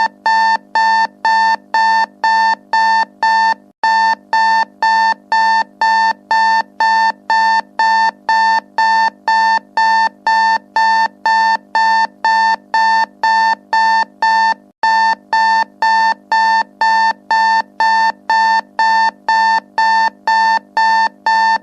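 Digital timer alarm beeping rapidly and without letup, about two and a half beeps a second in a buzzy, organ-like tone, signalling that the countdown has finished. The pattern breaks off for an instant twice as the alarm loops.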